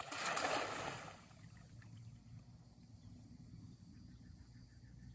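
A cast net splashing down onto lake water, a spray-like hiss lasting about a second, followed by faint steady low background noise.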